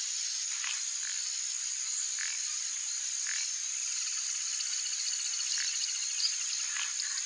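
Marsh ambience of frogs and insects: a steady high-pitched insect trill, short frog calls every second or two, and a fast pulsing trill joining about four seconds in.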